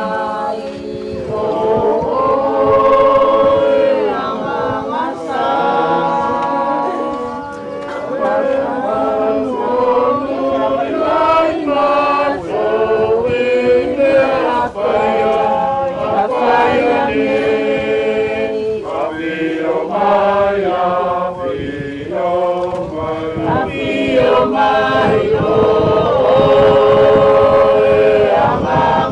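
A choir singing a hymn in harmony, with long held notes.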